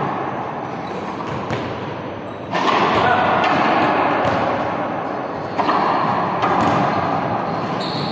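A ball bouncing and thudding on a court again and again, amid the busy noise of players, with voices mixed in.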